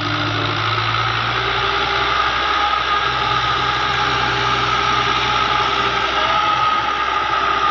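A 640 tractor's diesel engine running steadily under load while its PTO-driven rotavator tills the soil. The sound is a low drone with a constant high whine above it, growing slightly louder as the tractor comes close.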